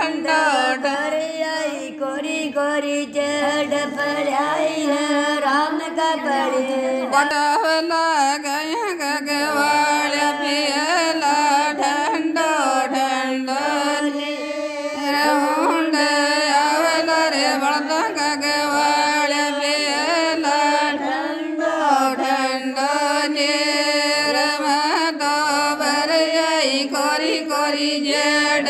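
Rajasthani devotional song (a Tejaji bhajan) playing: a singer's voice gliding up and down over a steady drone and accompaniment.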